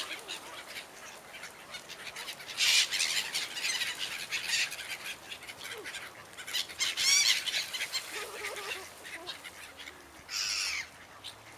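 A flock of black-headed gulls calling: harsh, repeated squawks, with louder calls about a quarter of the way in, around the middle, and near the end.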